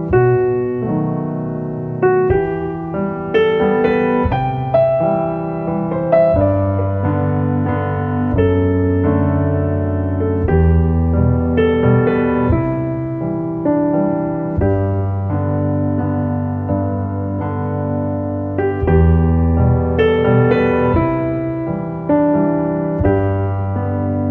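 Background piano music: single notes and chords over low held bass notes, a new note struck every second or less.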